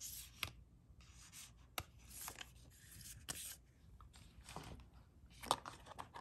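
Paper and cardboard watch-box packaging being slid and handled: faint rubbing and scraping with a few light taps and clicks.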